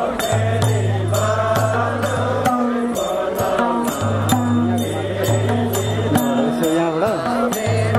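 Nepali Magar nacheri folk song: voices chanting together over madal barrel hand drums beating a steady rhythm of sharp slaps and deep booming strokes.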